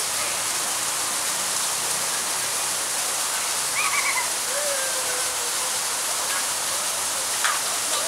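Small artificial waterfall spilling into a pond: a steady hiss of falling water.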